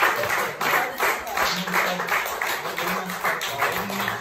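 Small audience applauding, with an acoustic guitar strummed along with the clapping.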